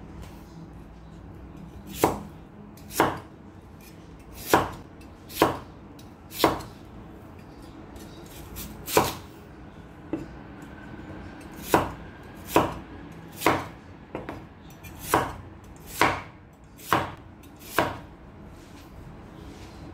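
Large kitchen knife cutting raw potatoes into wedges, each stroke ending in a sharp knock on an end-grain wooden cutting board. About sixteen strokes, roughly one a second, unevenly spaced.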